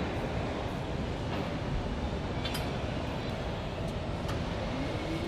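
Steady mechanical rumbling noise with a few faint clicks.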